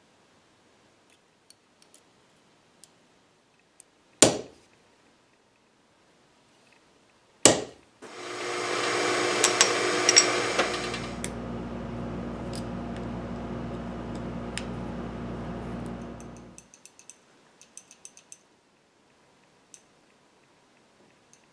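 Drill press running for about eight seconds while drilling a hole, busiest and brightest for its first two seconds and then running steadily until it stops. Two sharp knocks come a few seconds before it starts, and light clicks follow after it.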